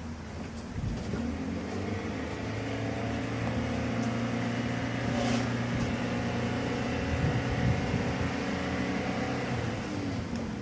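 A motor vehicle's engine passing slowly, its hum building about a second in and dropping in pitch as it fades near the end.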